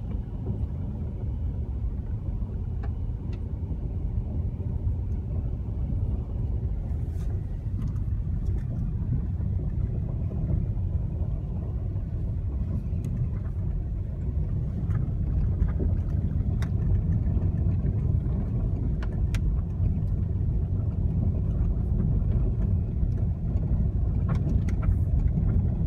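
Steady low rumble of a car being driven, heard from inside the cabin, with scattered light clicks and knocks over it.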